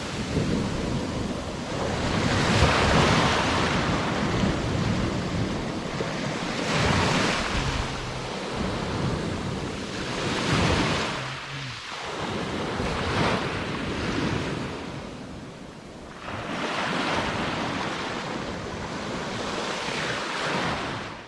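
Sea waves washing onto the shore, the surf swelling and falling back every few seconds, with wind rumbling on the microphone.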